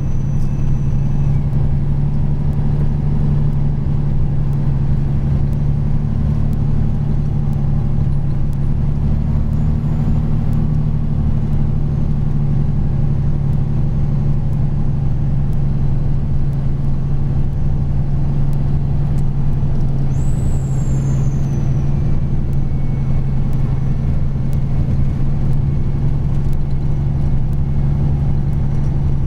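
A Mitsubishi Fuso truck's diesel engine running steadily, heard from inside the cab as the truck drives along, a constant low drone. About two-thirds of the way in there is a brief high squeal that falls in pitch.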